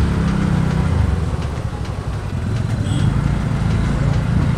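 A two-wheeler's engine running while riding, with wind rush on the microphone and street noise. The engine eases off about two seconds in and picks up again.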